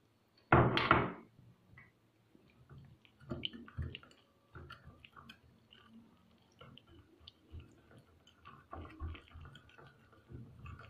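Wire whisk stirring a wet flour-and-egg batter in a ceramic bowl, with a brief louder burst of noise about half a second in, then scattered light clicks as the whisk knocks and scrapes against the bowl.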